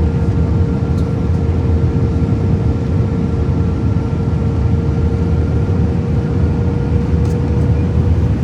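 Airliner cabin noise in flight: a steady low rumble of the engines and rushing air, with a constant humming tone above it.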